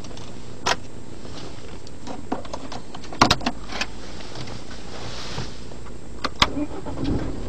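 Several short, sharp plastic clicks, one alone and then in small clusters, from a BMW 1 Series' steering-column stalk and switchgear being worked by hand. A steady low hum of the car's cabin runs underneath.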